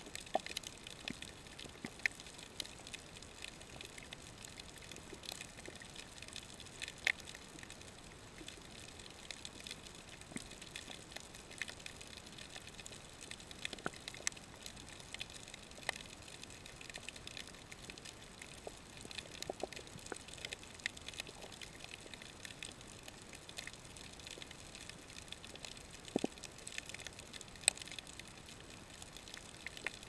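Underwater reef ambience: a faint steady hiss with scattered, irregular sharp clicks and crackles.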